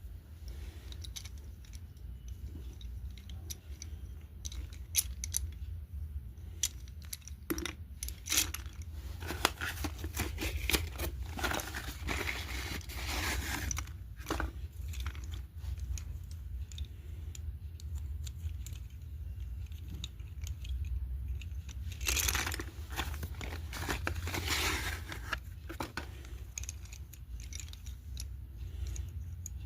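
Close-up clicks, crinkles and crunches of red slate pencils and their packaging being handled, with two longer spells of rustling and tearing, one about a third of the way in and one past two-thirds. A steady low hum runs underneath.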